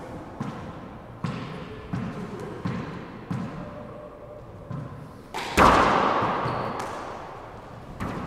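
A handball bounced on a hardwood court floor, a short knock about every 0.7 s. About 5.5 s in comes a much louder slap as the ball is served off the hand into the front wall, echoing around the enclosed court for a couple of seconds. Another hit follows near the end.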